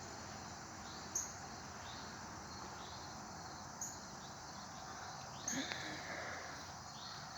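Faint garden ambience: short high chirps repeating every second or two over a steady hiss, with a brief louder call about five and a half seconds in.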